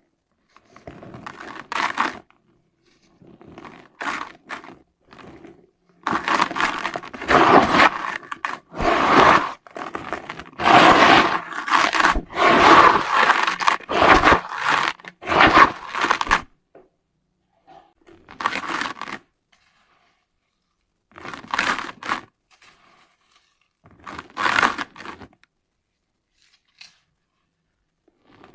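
Lumps of dry, gritty red dirt being crumbled, crunching and grating in bursts. A long stretch of close, dense crunching sits in the middle, with shorter separate crunches and silent gaps before and after it.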